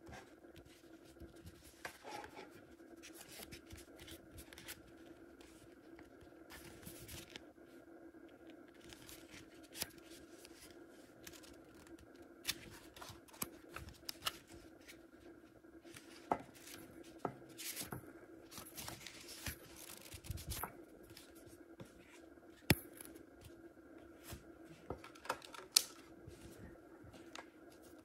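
Hands handling and flipping through a stack of stiff printed paper sheets: rustling, paper sliding on paper, and scattered sharp clicks and taps, over a faint steady hum.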